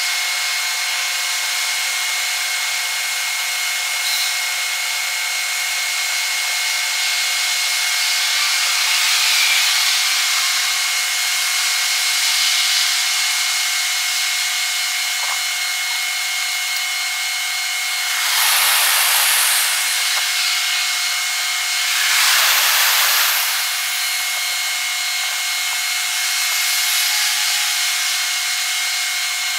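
Night ambience sped up six times: a steady high hiss with a few faint steady tones, swelling now and then into short whooshes as vehicles pass. The two loudest whooshes come about 18 and 22 seconds in.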